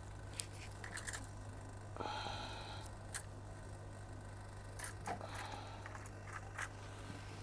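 Scattered light clicks and two short scrapes as small tools and boards are put away on a workbench, over a steady low hum.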